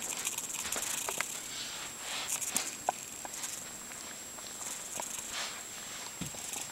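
Soft rustling and light pattering with scattered faint taps and clicks, from a kitten moving about on a rug, over a faint steady high whine.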